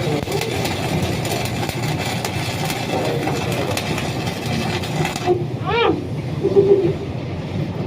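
Steady hum of industrial machinery with the faint crackle of a stick-welding (SMAW) arc, which cuts off suddenly about five seconds in. A short rising-and-falling squeal follows just after.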